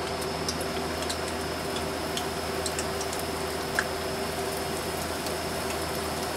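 Wrapped rolls deep-frying in a steel pot of hot oil: steady sizzling with many small crackles and pops, and one louder pop a little before the middle.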